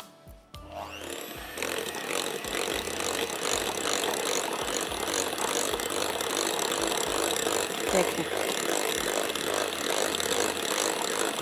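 Electric hand mixer with twin wire beaters starting up about a second in and running steadily, beating butter-sugar-egg cake batter in a glass bowl, with a single knock about eight seconds in.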